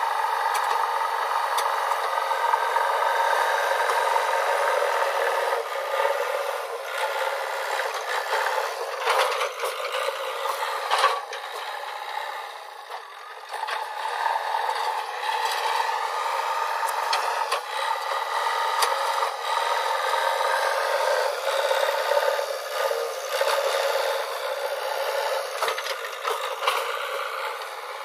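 JCB 3DX backhoe loader's diesel engine running steadily, with occasional sharp knocks and clatter as the machine works. The loudness dips briefly about halfway through.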